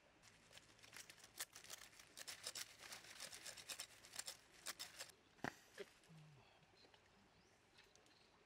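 Wood campfire crackling, with a dense run of sharp pops and snaps that dies away after about five seconds with one last louder pop.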